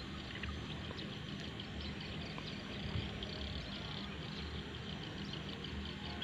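Steady outdoor background noise: a low, uneven rumble with faint high chirps scattered through it.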